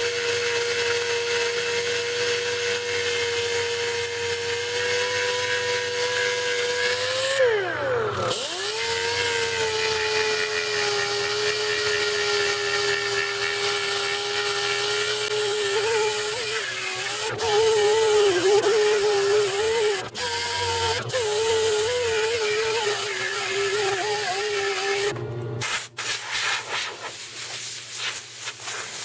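Electric power sander sanding a fiberglass patch: a steady motor whine that sags in pitch and picks back up about eight seconds in, wavers under load from the middle on, and cuts off near the end.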